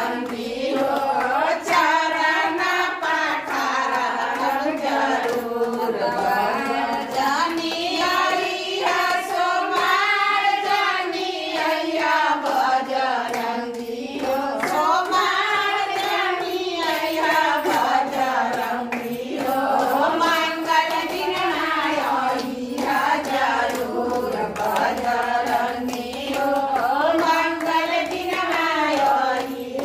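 A group of women singing a Shiv bhajan together, with steady hand clapping keeping the beat.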